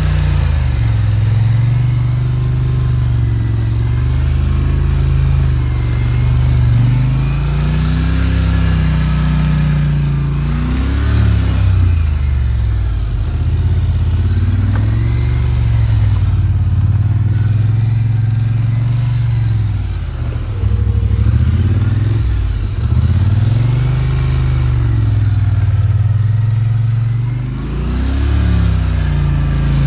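Polaris ATV's engine revving up and down again and again as the quad is ridden off-road, its note rising and falling every few seconds.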